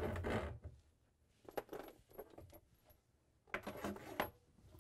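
Corrugated plastic dishwasher drain hose and braided steel water supply line being pulled through a hole in the cabinet wall: light scraping and small metallic clinks, in two short bursts, about a second and a half in and near the end.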